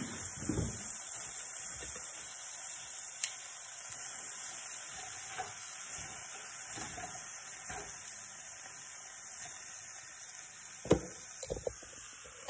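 Fresh kale sizzling in a frying pan of oil and pork-chop drippings, with a few sharp knocks near the end.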